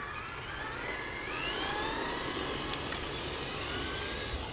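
Electric motor of a hobby-grade RC car whining as the car speeds up, the pitch rising over the first couple of seconds and then holding steady.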